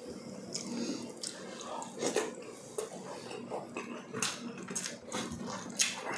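Close-miked eating of soft braised pork trotters (balbacua) by hand: wet chewing and mouth smacks with scattered light clicks of food and fingers on plates.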